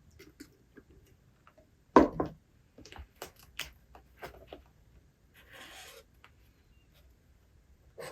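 Small desk handling sounds while reading: a sharp knock about two seconds in, a run of light clicks and taps, and a brief paper rustle of a page being turned.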